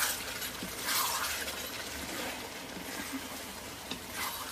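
Wooden spatula stirring a thick pork curry in a metal wok, with two short scrapes against the pan, about a second in and near the end.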